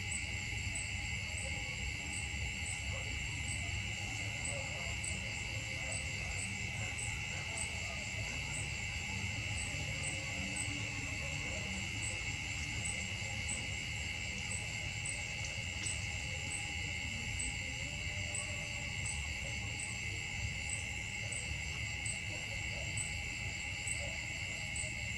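Steady high drone of forest insects, with a faint pulse near the top repeating about one and a half times a second and a low rumble underneath.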